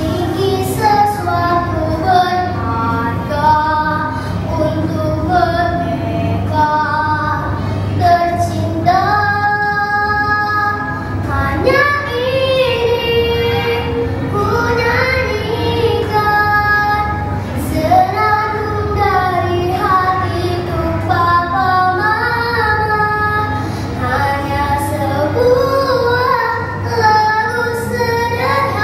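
A young girl singing a song solo, with several long held notes.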